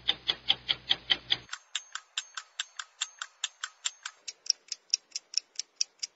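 Clock-like ticking, even and quick at about four or five ticks a second, as a sound effect on the video's soundtrack. A low hum underneath stops about a second and a half in.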